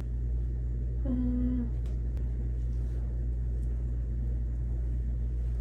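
Steady low background hum, with a short hummed note from a woman's voice about a second in and a few faint light clicks.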